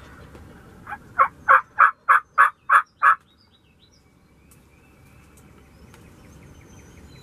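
A series of wild-turkey yelps: one soft note, then seven loud, evenly spaced yelps at about three a second, stopping after about three seconds. Faint songbird chirps follow.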